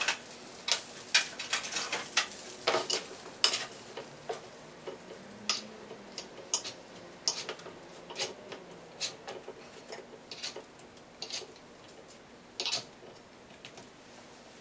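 A fork clinking and scraping against a metal baking tray as roasted chicken drumsticks are turned over: many irregular sharp clicks, busiest and loudest in the first few seconds.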